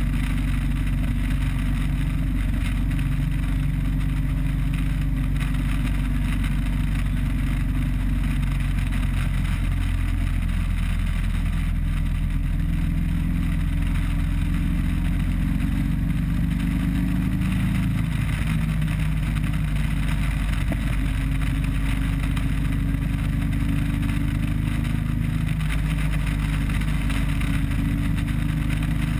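Harley-Davidson Road Glide Custom's V-twin engine running at cruising speed under a steady rush of wind and road noise, the engine note shifting a couple of times as the throttle changes.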